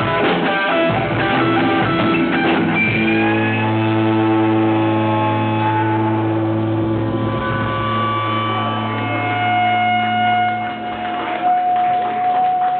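Live rock band with electric guitars and drums playing, then settling about three seconds in into a long held chord that rings on, with a high sustained note joining near the end.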